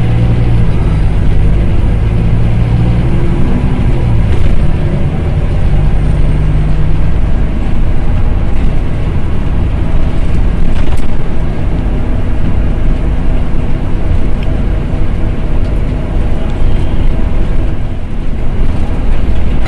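Loud, steady rumble of a city bus's engine and road noise heard inside the passenger cabin as the bus drives along. The engine note is strongest in the first several seconds as the bus pulls away, then settles into a steady drone.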